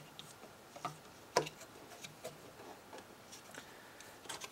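A few faint, scattered clicks and taps of small laser-cut parts being handled and pressed onto a hobby servo's horn, the sharpest about one and a half seconds in.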